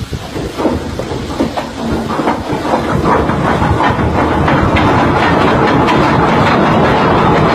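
Ship's anchor chain running out over the windlass: separate clanks of the links come faster and faster and merge into a continuous loud rattle. The chain is running away out of control.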